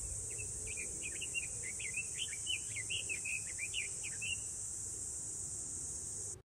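Outdoor ambience: insects drone steadily and high-pitched while a bird chirps a quick run of short notes for about four seconds. All of it cuts off abruptly near the end.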